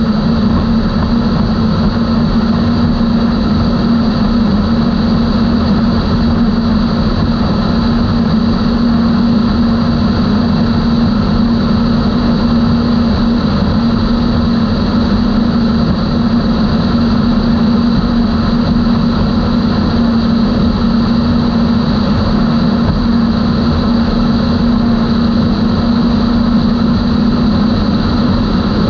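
Outboard engines of a 32 Skater powerboat running at a steady cruise, holding one even, unchanging engine note with a faint high whine above it.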